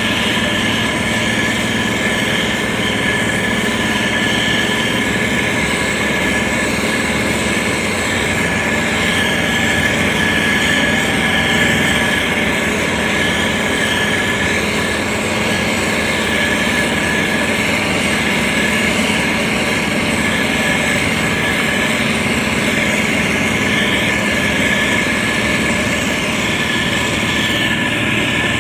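SANY STG190C-8S motor grader's diesel engine running steadily, with a constant high whine over the engine sound.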